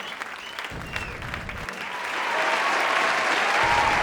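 Surf washing onto the beach, swelling louder from about halfway through.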